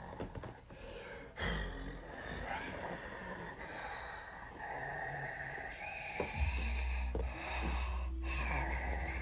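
A man's breathing, gasps and snorts as he acts out turning into a wolf, with a low rumble coming in a little past halfway.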